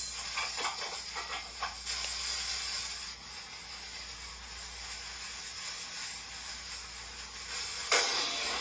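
Rocket-thrust sound effect: a steady hiss with a few crackles in the first couple of seconds and a louder burst of hiss near the end.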